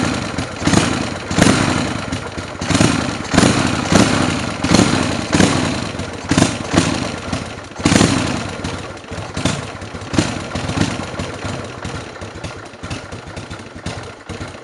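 Buell M2 Cyclone's air-cooled V-twin idling through a Vance & Hines exhaust with its silencer insert fitted, in uneven loping swells roughly every half second to second. It fades over the last few seconds and stops abruptly at the end.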